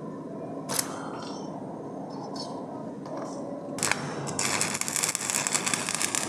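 Electric arc welding: a couple of sharp clicks, then about four and a half seconds in a dense crackle of the arc that runs for nearly two seconds and stops abruptly.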